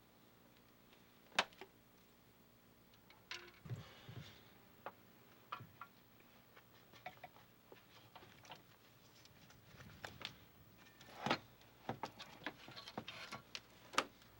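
Irregular light clicks and knocks with short pauses between them, sharpest about a second and a half in, near eleven seconds and near the end, as of small metal parts or hand tools being handled.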